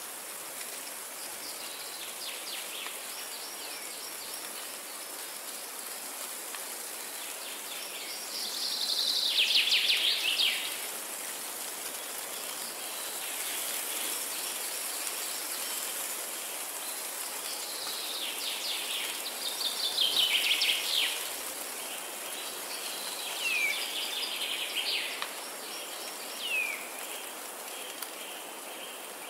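Windy forest ambience: a steady rustle of wind through trees, with songbirds singing in rapid trilling phrases, loudest twice, about a third and two-thirds of the way in. Short downward-sweeping bird calls come in the last third.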